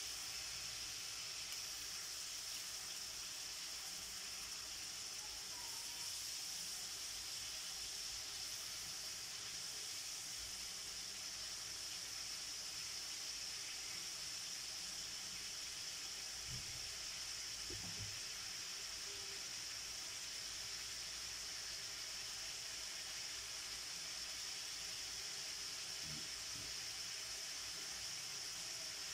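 Pork steak sizzling and simmering in its sauce in a steel wok: a steady hiss, with a few soft knocks of tongs against the pan about halfway through.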